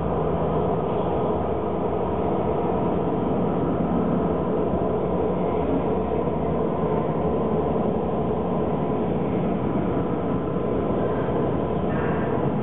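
A steady low drone with a few faint held tones, unchanging throughout: the soundtrack of a looping video installation.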